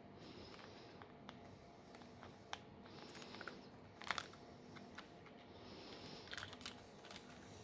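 Faint small clicks and taps of phone parts being handled with small tools during a smartphone teardown, the sharpest about four seconds in and a few more about six seconds in.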